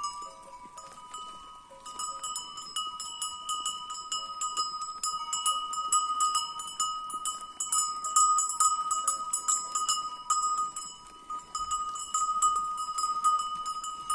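Many bells on a flock of sheep jingling and ringing together as the animals walk, with lots of small clinks over steady ringing tones. Sparse at first, then dense and continuous from about two seconds in.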